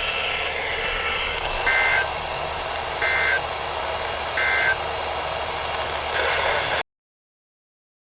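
NOAA Weather Radio receiver playing the end-of-message SAME data bursts that close a weekly test: three short two-tone digital chirps about a second and a half apart over steady static hiss. A fourth chirp begins just before the sound cuts off abruptly.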